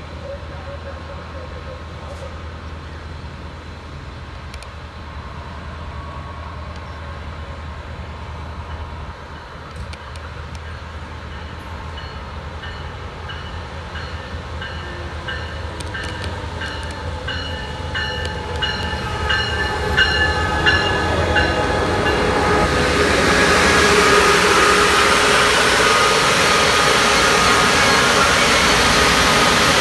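Amtrak Pacific Surfliner train led by a Siemens SC-44 Charger diesel-electric locomotive approaching and passing close by, its engine and wheel noise growing steadily louder and loudest over the last several seconds. A steady low diesel hum runs underneath.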